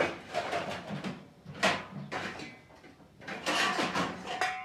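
Metal pots and plates clattering in a wire dish rack as they are handled, several separate knocks, the last leaving a short metallic ring near the end.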